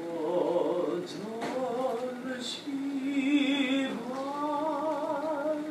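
Singing voices holding long notes with a wavering vibrato, with no clear words, breaking off briefly twice.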